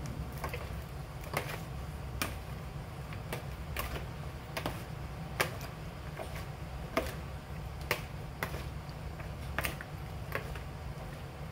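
A spoon tossing chopped vegetables in a plastic mixing bowl: irregular light clicks and taps about once a second, over a steady low hum.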